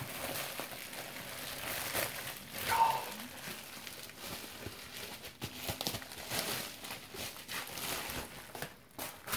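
Bubble wrap crinkling and crackling as a wrapped PC power supply is handled and lifted, with its attached cables rustling and clicking against each other.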